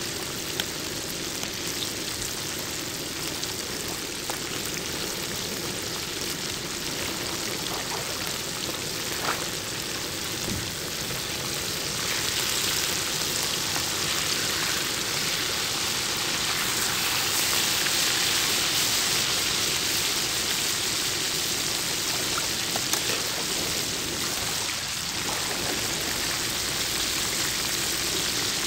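Whole fish frying in a pan of hot oil: a steady crackling sizzle that grows louder about twelve seconds in.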